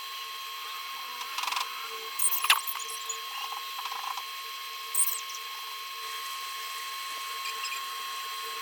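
A few short clicks and scrapes from handling a laptop's case and small tools, the sharpest about two and a half seconds in and again at five seconds, over a steady faint electrical whine.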